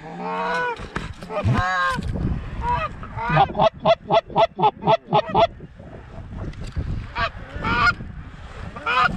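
Canada goose honks and clucks: a long drawn-out call at the start and another soon after, then a rapid run of about ten short clucks. A few single honks follow near the end.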